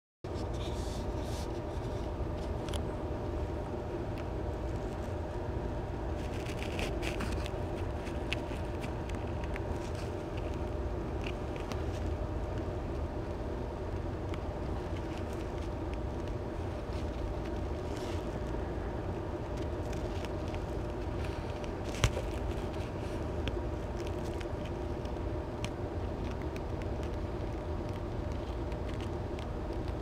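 A steady mechanical hum, as from a household appliance or fan, with a few faint clicks and one sharper click about 22 seconds in.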